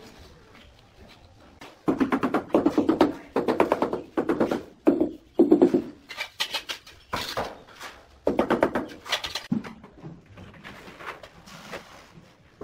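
Trowel working tile adhesive in a plastic bucket: two loud runs of fast, repeated scraping and knocking strokes, the first about two seconds in and lasting several seconds, the second shorter, with quieter scraping before and after.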